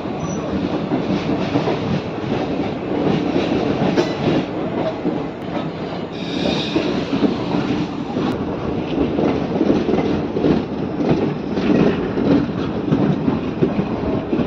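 Train running on the rails: a steady rumble with wheels clattering over rail joints. A short, sharper, higher-pitched noise cuts in about six seconds in.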